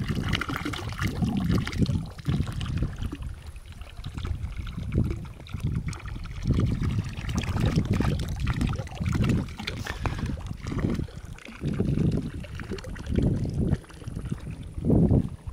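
Wind buffeting the microphone in repeated low gusts, over water trickling and lapping in a stone trough.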